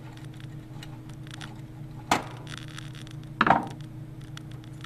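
Two sharp knocks of hard parts being handled while the CPU cooler is worked loose from a desktop motherboard, about two seconds in and again about a second later, with faint small clicks between them over a steady low hum.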